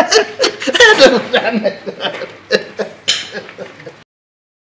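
A man laughing in loud, choppy bursts that cut off suddenly about four seconds in, followed by silence.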